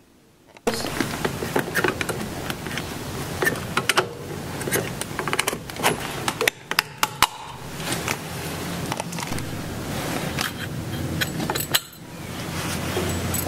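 Metal clicks, clinks and scraping as a tool and gloved hands press down and twist the spring-loaded crossbar of a BMW map-controlled (Kennfeld) thermostat to free it from its aluminium housing. The noise starts suddenly just under a second in and goes on unevenly, with many sharp clicks.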